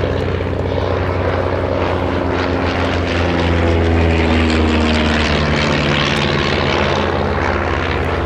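Propeller-driven light aircraft, a de Havilland Chipmunk, flying past with its piston engine running steadily. It gets louder toward the middle and the engine note shifts in pitch as it passes.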